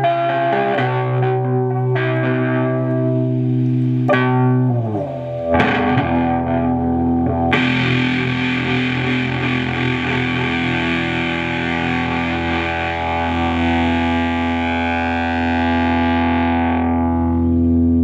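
Electric guitar played through a prototype fuzz pedal modelled on the Earth Sound Research Graphic Fuzz: a few distorted chords struck in the first five seconds, then one chord held and left to sustain, fading out near the end.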